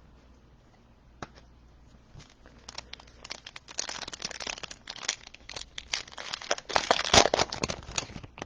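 Foil wrapper of a trading-card pack crinkling and tearing as it is handled and opened, starting about two and a half seconds in and loudest near the end.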